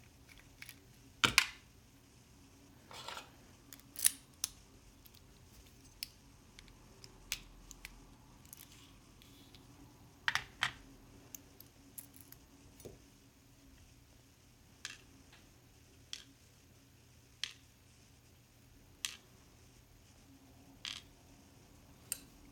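Small metal parts of a Lockwood 334B padlock clicking and clinking as the lock is taken apart by hand: about fifteen scattered sharp clicks, the loudest about a second in and around four and ten seconds in.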